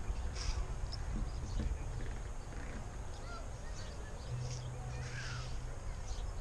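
Faint outdoor bird calls: a few short high chirps and one short falling call late on, over a low steady rumble of outdoor noise.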